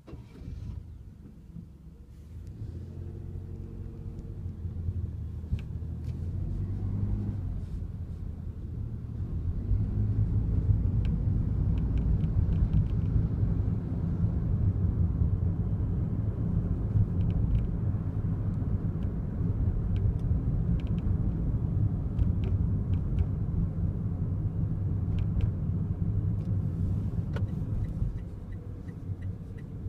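Daihatsu Wake driving, heard from inside the cabin: engine and road rumble that builds over the first several seconds as the car gets under way, then holds steady. Faint scattered ticks and rattles sit over it, the abnormal noise from around the driver's seatbelt that is being tracked down. A quick, even ticking starts near the end.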